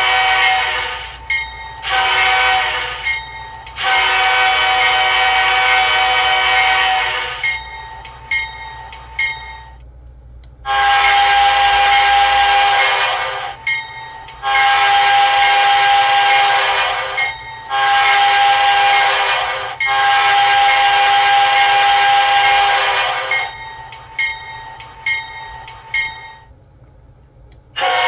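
Nathan K5HL five-chime locomotive air horn sounding a series of long blasts, each trailed by a fading echo. After a short pause about ten seconds in, a second K5HL recording sounds four blasts: long, long, short, long.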